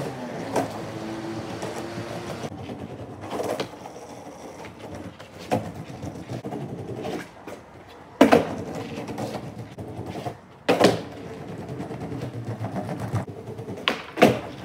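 Skateboard wheels rolling on rough concrete, broken by a handful of sharp clacks as the tail pops and the board lands during flip tricks, the loudest about eight and eleven seconds in.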